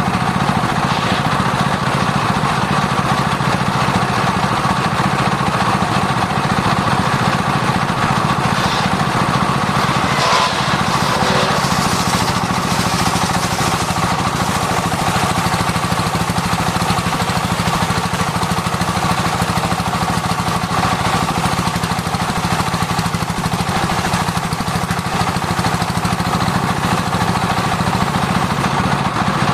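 Circular sawmill saw running steadily while sawing sengon wood, a constant loud mechanical drone with a steady whine.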